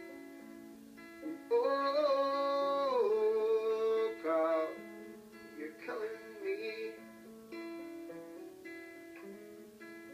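Acoustic guitar played by hand in a steady accompaniment pattern, with a man singing a few long, held notes over it in the first half.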